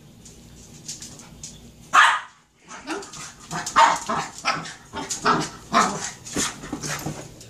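Small dog barking at an inflatable ball. One loud bark comes about two seconds in, followed by a quick run of short barks at about two a second.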